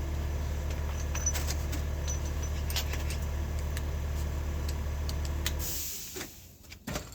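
Engine running steadily at idle, then shut off about six seconds in, followed by a brief hiss and a few clicks.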